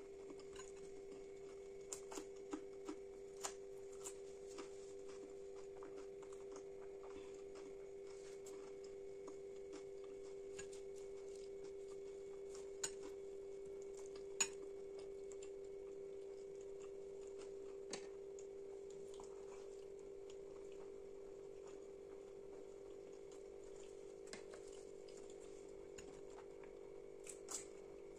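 Close-miked eating of chhole bhature by hand: soft chewing with scattered sharp mouth clicks and light clinks of fingers against steel bowls. The two loudest clinks come about halfway through. A steady low hum runs underneath.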